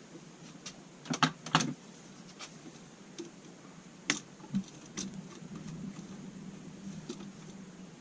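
Scattered sharp clicks and taps of small hard parts being handled during electrical wiring, with a quick cluster of three about a second in and single knocks near the middle, over a faint steady hum.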